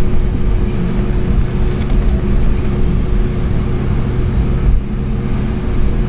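Boeing 757-200 jet engines heard from inside the passenger cabin: a steady, loud rumble with a constant hum.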